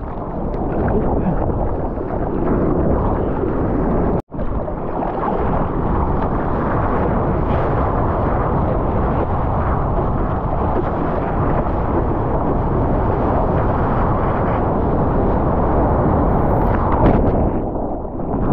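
Rushing ocean whitewater and wind buffeting a GoPro action camera's microphone as the surfer moves through breaking surf, a steady dense rush. It cuts out suddenly for a moment about four seconds in, and turns duller near the end as the camera goes under water.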